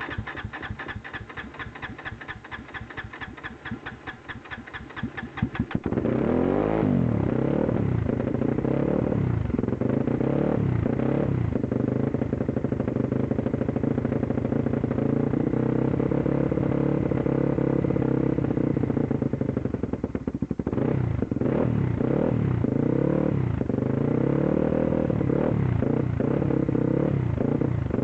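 A petrol engine cranking with a fast, even rhythm for about six seconds, then catching and running unevenly, its pitch wavering and briefly sagging about twenty seconds in: a rough-running, misfiring engine that is close to stalling.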